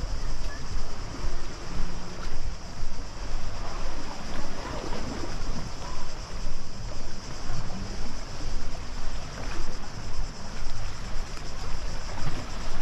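Wind buffeting the GoPro's microphone while walking, a heavy low rumble with regular footstep thumps about one and a half a second.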